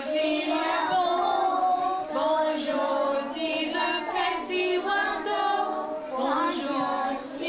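A group of young children singing together in chorus, phrase after phrase.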